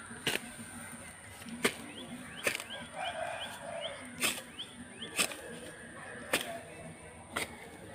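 Short-handled hoe chopping into grassy soil, about seven sharp strokes roughly a second apart.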